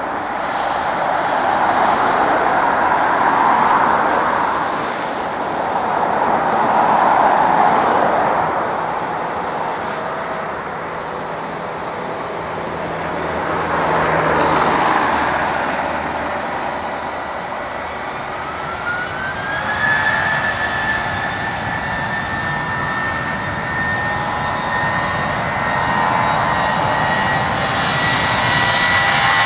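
Airbus A320-232's IAE V2500 turbofan engines running as the jet taxis and lines up, the noise rising and falling. About two-thirds of the way through the engines spool up with a rising whine that then holds steady and high, as thrust is set for the take-off roll.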